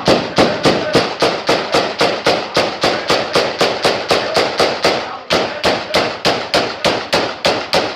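A fast, even run of sharp cracks, about four or five a second, over the noise of a crowd, with a short break about five seconds in.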